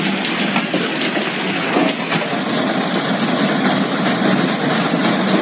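Heavy hail coming down: a dense, steady roar of hailstones striking the ground and nearby surfaces, with many small hits in it. Its sound shifts slightly a little over two seconds in.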